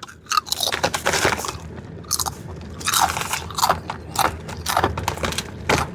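A person biting and chewing Cape Cod barbecue kettle-cooked potato chips: a rapid, irregular run of crisp crunches.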